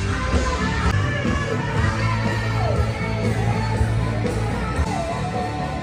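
Rock band playing live through a PA with a lead vocal singing over it, at a sound check.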